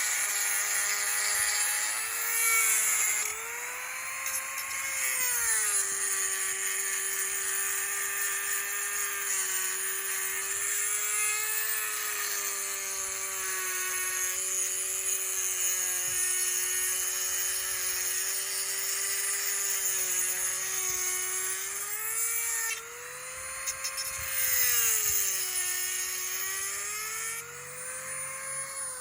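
Dremel rotary tool running a grinding bit inside a hole to enlarge it, with a steady high motor whine. Its pitch sags and climbs again several times as the bit is pressed in and eased off, and it winds down at the very end.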